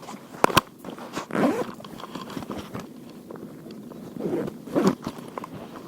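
Close handling noises: two sharp clicks about half a second in, then rustling and scraping twice, like gear or a bag being handled.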